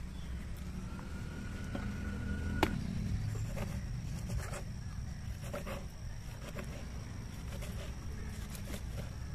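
A kitchen knife scoring slits into a whole raw katla fish on a banana leaf: soft cuts and scrapes, with one sharp click about two and a half seconds in, over a steady low rumble.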